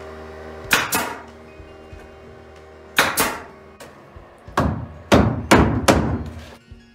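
A hammer knocking on a wood block to tap pine tongue-and-groove ceiling boards tight. About eight sharp knocks come in irregular groups: two, then two more, then a run of four near the end.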